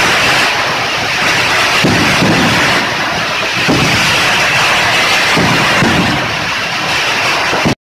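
Fireworks going off: a dense, continuous crackle with repeated low booms roughly once a second.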